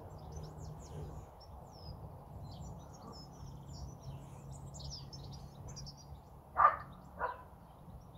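Small birds chirping and twittering in short, scattered notes over a steady low hum. Near the end come two short, louder sounds about half a second apart.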